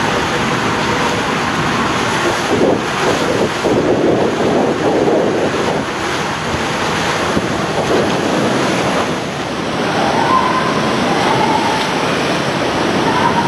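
Rushing water and a rider sliding down an enclosed tube water slide, heard from inside the tube as a steady rushing noise. Near the end the rider shoots out into the landing pool with a splash.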